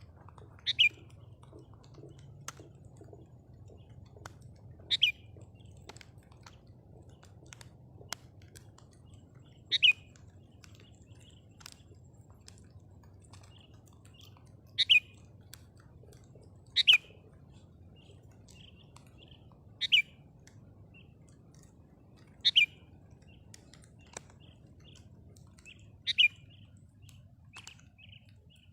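Sooty-headed bulbul calling: about eight loud, short notes, each dropping in pitch, spaced a few seconds apart, with softer chirps between them.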